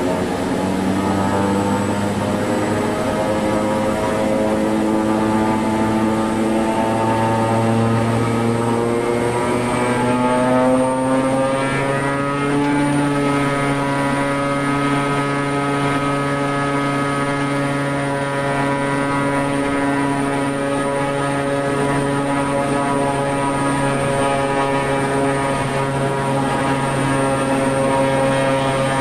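Shorts 360's Pratt & Whitney PT6A-65AR turboprop engines and propellers running, heard from the cockpit: a drone of several steady tones. Their pitch climbs over the first dozen seconds or so as the power levers are advanced toward 1620 propeller RPM for the overspeed governor test, then holds steady.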